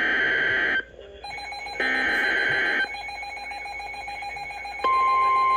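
Emergency Alert System (SAME) end-of-message data bursts: two one-second warbling digital squawks about a second apart, closing the NOAA Weather Radio tornado warning. A fainter steady tone hums underneath. Near the end, the loud, steady 1050 Hz Weather Radio warning alarm tone begins, announcing the next alert.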